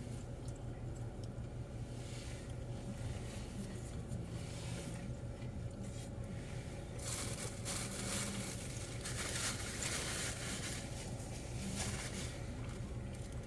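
Paper food wrapper rustling and crinkling as a sandwich is handled and unwrapped, in irregular bursts that grow busier about halfway through, over a steady low hum.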